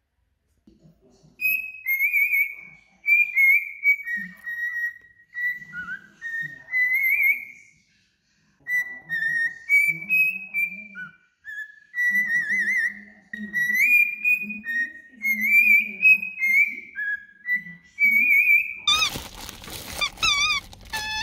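Cockatiel whistling a tune: a string of short clear whistled notes that step up and down in pitch, some with quick trills. Near the end the whistling gives way to a steady rushing noise with a high wavering whine.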